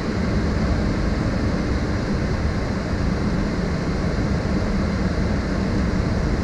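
Steady flight-deck noise of a Boeing 737-800 on short final approach: an even rush of airflow over a low hum, unchanging throughout.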